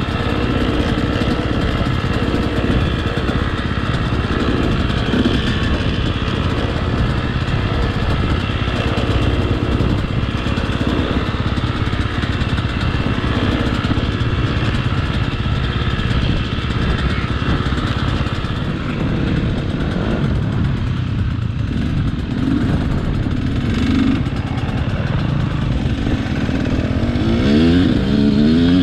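Two-stroke 125 cc motocross bike engine (KTM SX 125) running at low, fairly steady revs while ridden slowly. Near the end it revs up, rising in pitch, as it accelerates onto the track.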